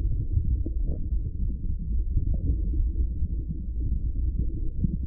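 Muffled low rumble of water moving against the housing of a submerged underwater camera, with a few faint ticks about a second in.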